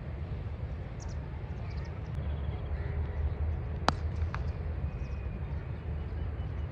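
A cricket bat striking the ball once, a sharp crack about four seconds in, with a smaller click just after, over a steady low rumble.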